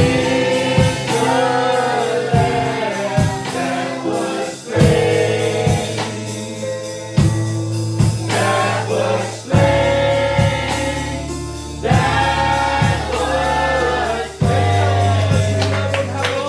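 Gospel worship song: voices singing a melody over steady bass notes and a regular drumbeat.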